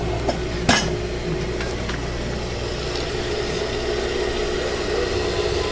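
Table motor of a Juki DDL-5550 industrial sewing machine running with the needle still, a steady hum. There is a single sharp click about a second in.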